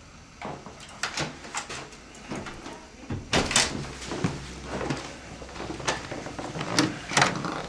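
Hotel room door being unlocked and opened, a string of sharp clicks and knocks from the lock, handle and door, the loudest a few seconds in, with more knocks and clatter as people go in.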